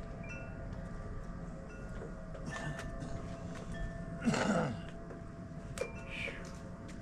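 Wind chimes ringing with scattered single notes at several pitches. A brief, louder rush of noise comes about four seconds in.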